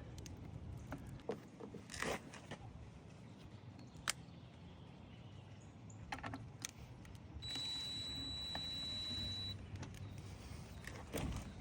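Scattered light clicks and metallic clinks of tail light screws and parts being handled, then about seven seconds in a cordless drill runs with a steady high whine for about two seconds, driving in a tail light mounting screw.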